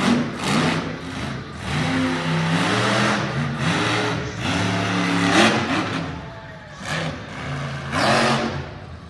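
Monster truck engine revving up and down over and over as the truck is driven hard, with three louder blasts of throttle: about half a second in, past the middle and near the end.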